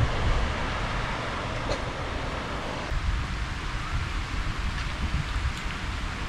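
Wind rumbling on the microphone over a steady rush of outdoor noise, with water sloshing against a concrete edge as a magnet rope is hauled in. The sound thins out about three seconds in.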